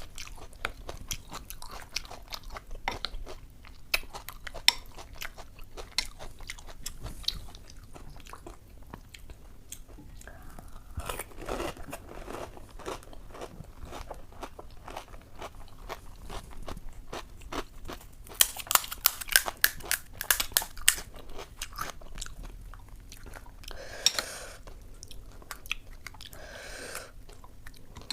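Close-up chewing and crunching of puchka (pani puri), crisp puri shells cracking between the teeth, with a dense run of crunching about two-thirds of the way through.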